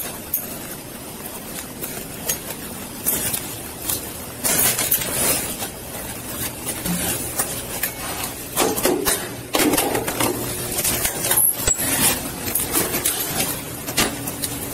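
Footsteps on concrete with the clinking and jangling of metal duty gear, picked up by a chest-worn body camera, with scattered clicks and knocks that grow busier about four seconds in.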